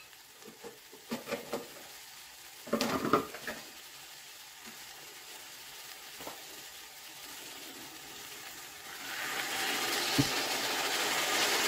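Diced vegetables and ground beef sizzling faintly in a large aluminium pot, with a few light knocks and a short clatter about three seconds in. About nine seconds in, hot water starts pouring into the pot: a louder rushing hiss that keeps going.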